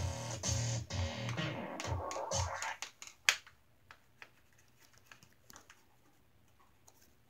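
Music with a low bass line that stops about two and a half seconds in, followed by one sharp click and then faint scattered ticks and scratches.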